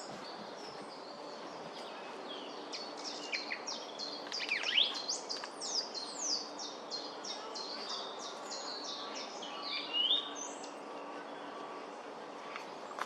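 Song thrush singing: a fast run of high, clear notes and quick downward slurs lasting several seconds, then stopping about ten seconds in, over a steady low background noise.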